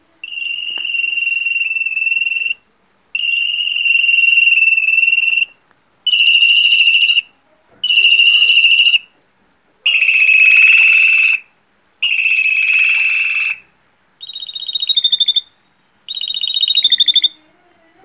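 Spanish Timbrado canary song: a series of timbres, the metallic continuous 'ri-ri-ri' rolls that are scored in Timbrado judging. There are eight rolled phrases of one to two and a half seconds each, separated by short pauses. The last two are higher and more plainly pulsed.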